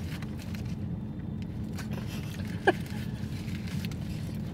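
Steady low hum inside a car's cabin. About two and a half seconds in, a brief voice sound falls in pitch.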